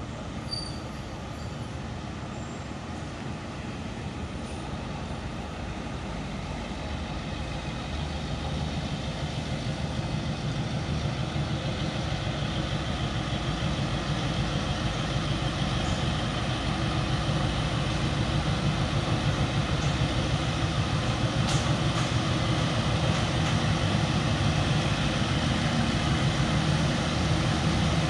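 KAI CC 204 diesel-electric locomotive approaching, its diesel engine running with a low drone that grows steadily louder as it comes closer.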